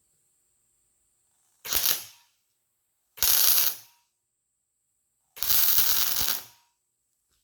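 Welder arcing in three bursts, the last the longest, as a nut is welded onto a broken exhaust-manifold bolt stub in an LS cylinder head so the bolt can be turned out.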